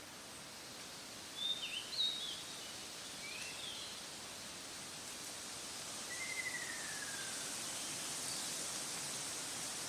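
Ruddy kingfisher giving one falling, trilled call about six seconds in, over a steady high hiss. Short, sharp, louder chirps from another bird come earlier, from about one and a half to three and a half seconds in.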